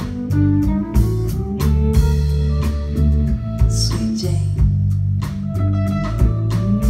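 Live band playing an instrumental jam: plucked guitar lines over bass guitar and a drum kit keeping a steady beat with cymbal hits.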